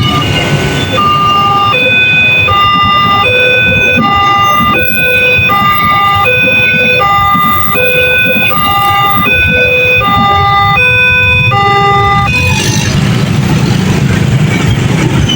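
Railway level-crossing warning siren of the Multec type playing a fast, repeating sequence of electronic tones over a low rumble of vehicles. The siren cuts off about twelve seconds in, leaving only the vehicle noise.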